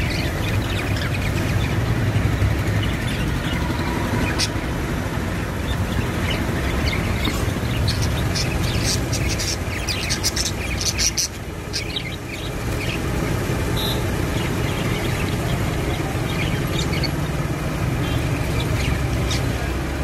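Budgerigars chirping and chattering in short, quick calls, busiest about halfway through, over a steady low rumble.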